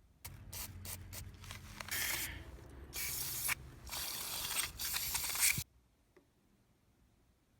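Short bursts of spraying hiss, the longest about two seconds, with clicks and scraping before them. The sound cuts off abruptly near the end.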